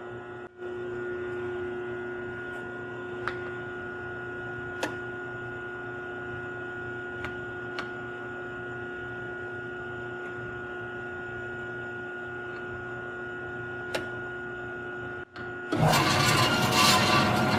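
A Marvel 916M horizontal metal bandsaw running, its 2 hp three-phase motor and blade giving a steady hum with one clear tone and a few light ticks. Near the end it turns louder and harsher. The owner puts the saw's noise down to a rusty blade that needs changing and some adjustments.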